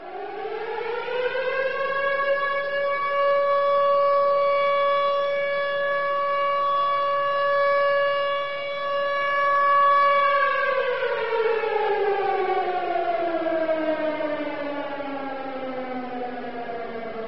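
Rooftop civil-defence siren sounding an air-raid alarm. It winds up to a steady wail, holds one pitch for about eight seconds, then winds slowly down in a long falling tone.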